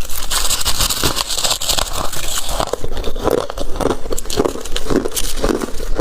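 Crunchy, flaky deep-freezer frost crackling and crunching in a dense run of quick crackles, as it is scraped and crushed by hand or bitten.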